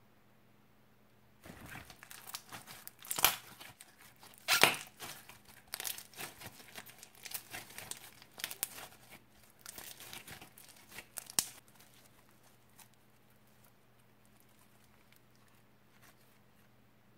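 Crunchy slime packed with small foam beads being squeezed and kneaded by hand, giving a dense run of irregular crackles and clicks. The crackling stops about two-thirds of the way through.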